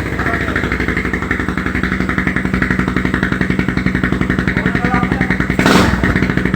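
Motorcycle engine idling through an Apido 'silent killer' aftermarket exhaust pipe, a steady fast pulsing exhaust note, with one brief louder burst near the end.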